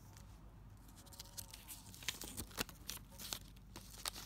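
A sheet of paper being torn from a small spiral-bound notepad: a run of short, irregular crackles and rips that begins about a second in and is busiest in the second half.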